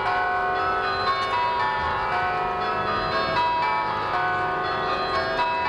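Church bells ringing loudly: many bells struck one after another in quick succession, their tones overlapping.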